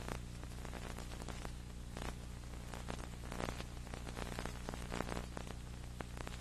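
Old videotape soundtrack with a steady low electrical hum and hiss, broken by irregular crackling clicks.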